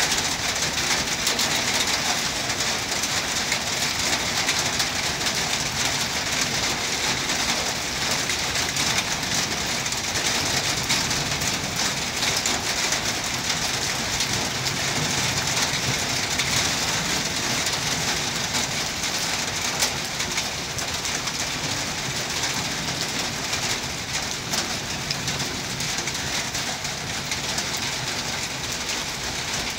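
Steady rain pattering on surfaces, a dense even hiss with fine drop ticks, over a low rumble from a passenger train rolling past.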